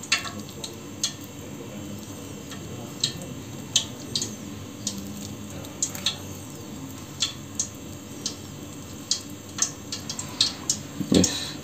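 A metal spoon stirring and scooping thick mashed-banana batter in a bowl, with scattered light clicks of the spoon against the bowl's side over a low steady background hum.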